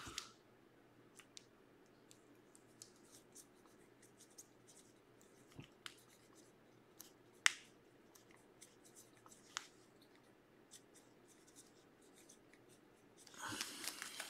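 Faint marker-on-surface writing: a Sharpie's light scratching with scattered sharp ticks and clicks. Near the end comes a short rustle of cards in plastic sleeves being handled.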